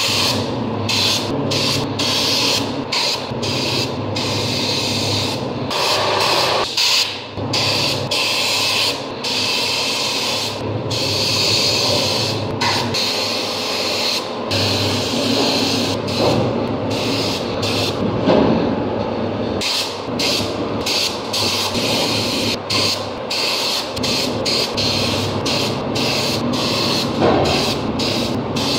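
Gravity-feed paint spray gun spraying an alloy wheel: a rush of hissing air and paint that stops and starts again many times with each trigger pull and pass, over a steady low hum.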